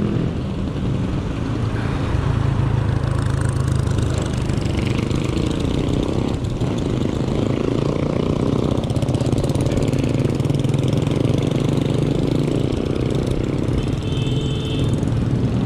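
Steady rumble of wind on the microphone of a camera on a moving bicycle, mixed with street traffic and motor vehicle engines.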